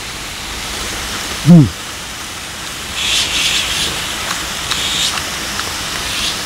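Beef sizzling on an electric grill pan: a steady hiss that swells from about three seconds in, with small crackles and pops of spitting fat. About a second and a half in, a man's short falling hum cuts through.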